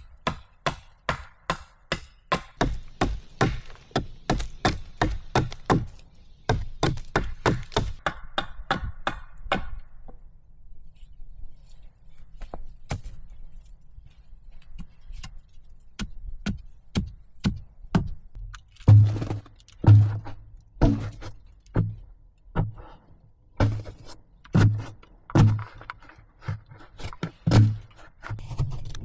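Repeated chopping blows: quick, regular strikes about two to three a second for the first ten seconds, then a short lull and slower, heavier blows with a dull thud.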